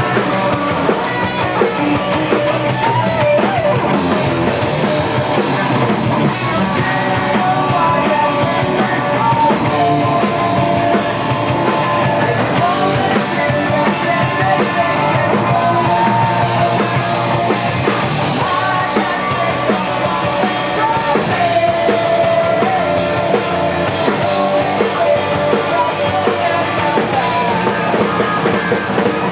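Rock band playing live, loud and steady: electric guitar, bass and drum kit.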